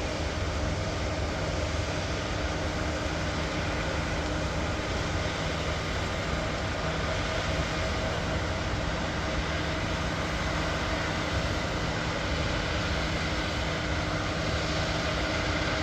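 Heavy farm machinery running at the field: a loud, steady engine drone with constant humming tones over an even rushing noise.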